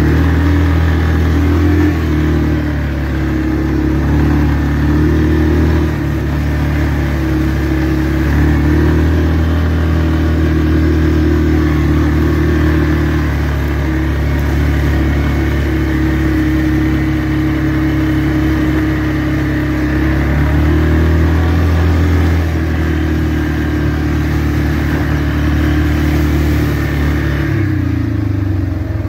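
2004 Yamaha Kodiak 450 ATV's single-cylinder four-stroke engine running under way, its pitch stepping up and down as the throttle is opened and eased off, and dropping near the end.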